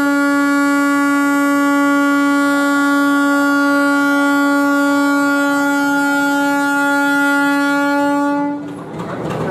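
Locomotive air horn sounded in one long, steady blast on a single note, cutting off near the end. The locomotive is 53 years old.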